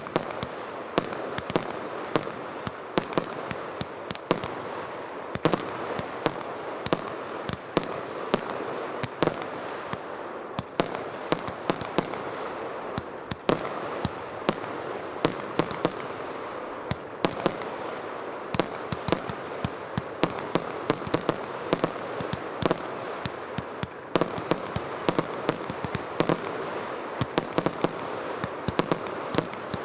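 A 305-shot fireworks cake firing continuously: a rapid, irregular string of sharp shots and bursts, several a second, over a steady hiss.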